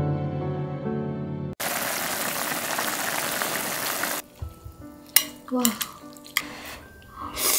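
Pot of ramen with oysters boiling hard, a dense bubbling hiss that cuts in sharply after a short stretch of music and lasts about two and a half seconds. Then metal chopsticks and a spoon clink against a ceramic bowl a few times.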